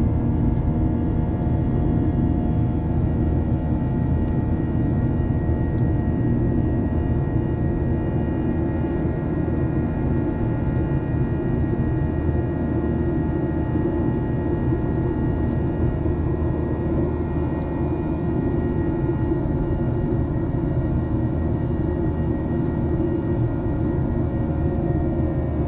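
Cabin noise inside a Boeing 737-800 in its climb after takeoff: a steady rumble of the CFM56-7B engines and rushing air, with several steady whining tones over it.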